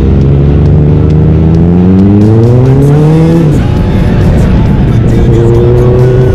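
Kawasaki ZX14R's inline-four engine through a Brocks exhaust, accelerating hard. The engine note climbs steadily for about three seconds, drops sharply at an upshift, and then runs on at a steadier pitch.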